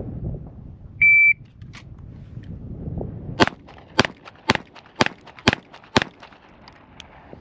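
A shot timer gives one short beep, then a Springfield Armory Prodigy pistol fires six shots, about half a second apart: a Bill drill, timed at 4.96 seconds.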